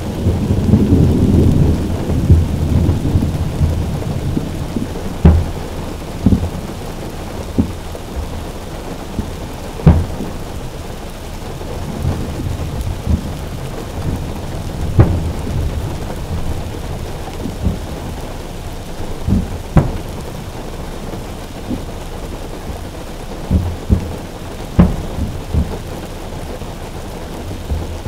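Rain drumming steadily on a car roof, with fireworks shells bursting as sharp booms about a dozen times at irregular intervals a few seconds apart. A long low rumble fills the first few seconds.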